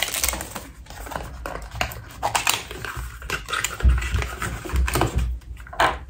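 Perfume packaging being opened by hand: irregular rustling, scratching and small clicks of the box and its wrapping, with a few dull knocks about four to five seconds in.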